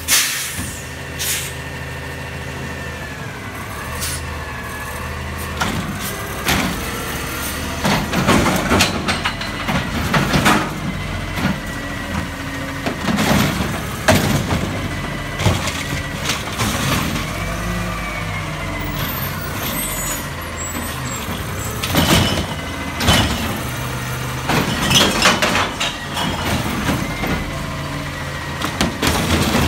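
Automated side-loader garbage truck running while its hydraulic arm grabs, lifts and tips a recycling cart into the hopper, with repeated clunks and knocks from the arm and cart. The diesel engine keeps a steady hum underneath.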